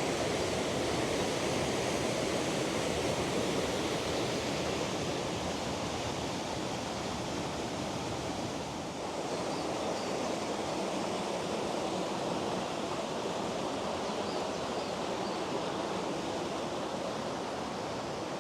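Aira Force waterfall: a steady rush of falling water, heard close to the falls.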